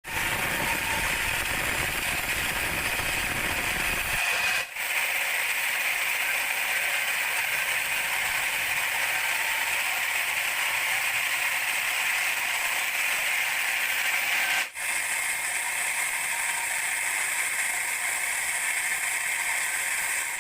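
Band sawmill blade running through a teak log: a steady, high rasping noise, with two momentary dips about five and fifteen seconds in.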